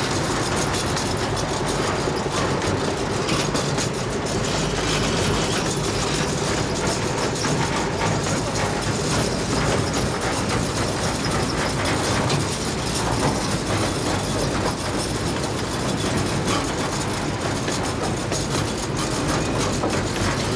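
A 15-inch-gauge miniature park train rolling along its track, heard from aboard: a steady running noise of the cars' wheels on the rails.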